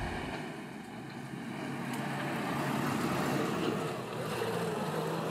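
Moskvich 411 four-wheel-drive car driving past on asphalt: engine and tyre noise swell and then ease off, with a steady low engine hum in the last second or so.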